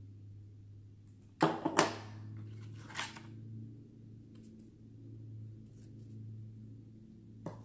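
Small toy-kit parts being handled and unpacked from a cardboard box: a quick cluster of knocks and rustles about a second and a half in, another knock about three seconds in, then faint ticks and one click near the end, over a steady low hum.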